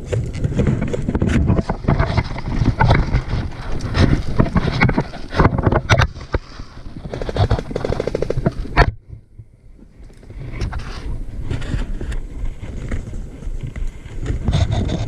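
Wind and handling rumble on a body-worn camera's microphone as the player moves, with scattered knocks and clicks of gear. A rapid rattle of evenly spaced clicks comes about seven seconds in and ends in a sharp knock, followed by a brief quieter moment.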